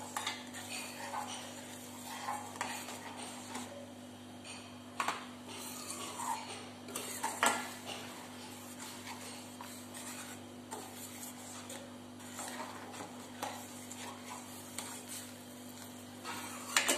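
Steel spoon scraping and clinking against a stainless steel kadai while stirring milk and vermicelli, with a few sharper knocks of spoon on pan rim, over a steady low hum.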